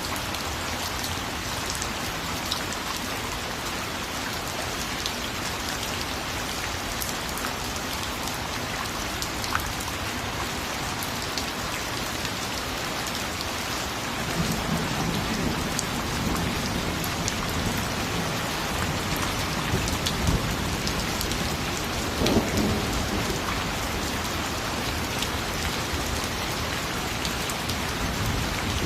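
Steady heavy rain hissing and pattering. About halfway through, a low rumble of thunder rises under it and swells once more a few seconds later.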